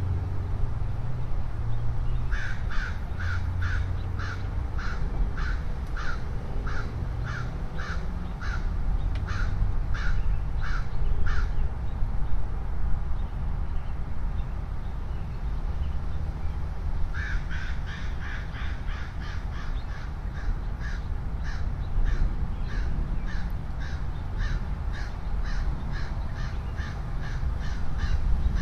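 A crow-like bird giving long runs of harsh, evenly spaced caws, about two a second. The first run lasts some nine seconds, and after a pause a second run carries on to the end, all over a constant low rumble.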